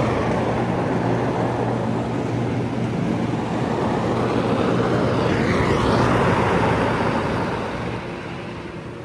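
Massage machine running: a steady motor hum under a loud rushing noise that eases off near the end.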